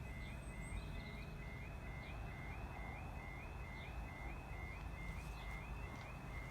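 Level crossing warning alarm sounding steadily: a two-tone warble, a lower note stepping up to a higher one about twice a second, over a steady low rumble.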